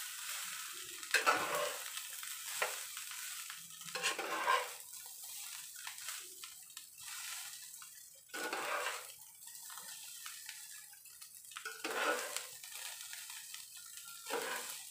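Metal slotted spatula scraping and turning fried rice in a stone-coated nonstick frying pan, in irregular strokes every few seconds, over a faint sizzle of the rice frying.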